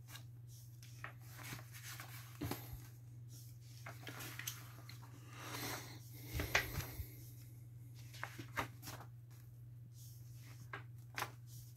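Glossy pages of a thick book being turned and handled on a wooden table: paper rustles, soft page-flip swishes and light taps, with one louder knock a little past halfway, over a steady low hum.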